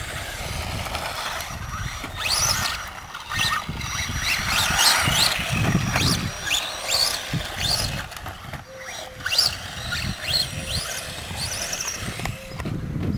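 Several radio-controlled off-road cars racing, their electric motors giving short whines that rise in pitch again and again as the cars accelerate, over a rough rumble.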